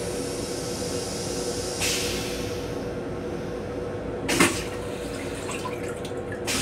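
Stainless steel toilet on an M7 commuter rail car going through its flush cycle: rinse water sprays around the bowl and drains away. A brief loud rush comes about four and a half seconds in and another near the end, over the steady hum of the rail car.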